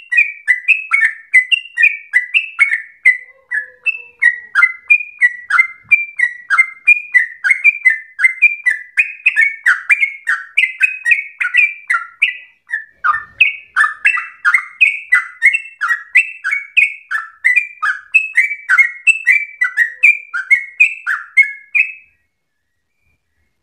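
Yellow-vented bulbul (trucukan) singing a long, fast run of short, slurred, falling notes, several a second, stopping shortly before the end.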